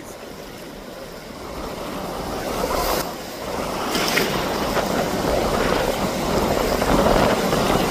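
Steady rushing noise of wind and surf at the beach, growing louder over the first few seconds.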